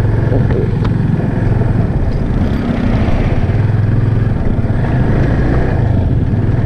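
Yamaha FZ25 motorcycle's single-cylinder engine running steadily with a constant low hum.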